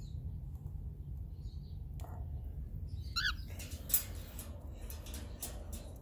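Faint high peeps from inside a cockatiel nest box where an egg has just hatched, with one short, louder call about three seconds in. In the second half come rustling and clicks of the phone being handled against clothing, over a steady low rumble.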